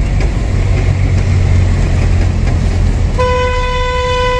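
Truck engine and road noise, a steady low rumble heard inside the cab. Near the end a vehicle horn sounds once, one steady note held for just over a second.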